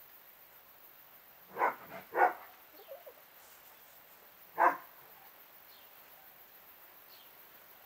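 A dog barking three times: two quick barks about a second and a half in, then one more a couple of seconds later. Faint bird chirps sound in between.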